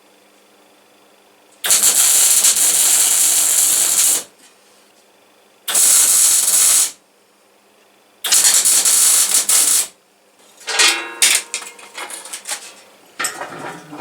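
Welding on a steel moped frame: three steady, crackling weld bursts of a second or two each, with short pauses between them. In the last few seconds there is irregular knocking and clattering of metal being handled.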